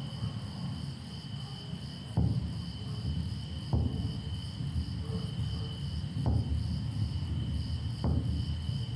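Crickets chirping in a steady high drone over a low rumble, with four sharp struck sounds a second or two apart.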